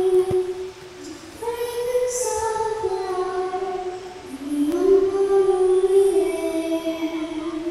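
Voices singing a slow song in long held notes, each note stepping to a new pitch every second or so, with a short pause about a second in.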